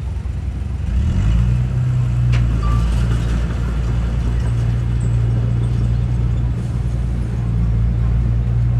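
Heavy diesel engine of earthmoving machinery running, growing louder about a second in and then holding a steady low drone.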